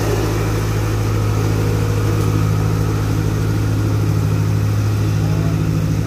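Diesel engine of road-paving machinery running at a steady speed, a constant low hum that holds even pitch throughout.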